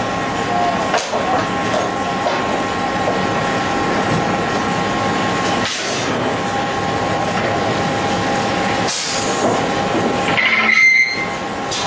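Sawmill lumber-stacking machinery running: a steady mechanical din with several whining tones and a few sharp knocks. A brief high squeal comes near the end.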